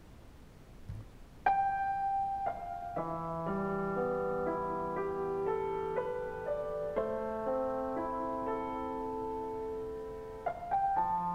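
Slow, soft piano music comes in about a second and a half in: a couple of single held notes, then sustained chords.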